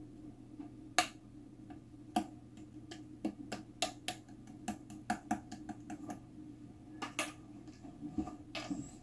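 A run of irregular, light, sharp clicks, roughly two to three a second and thickest in the middle, over a steady low hum.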